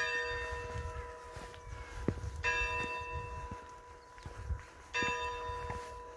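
Church bell tolling: three strokes about two and a half seconds apart, each ringing out and fading before the next.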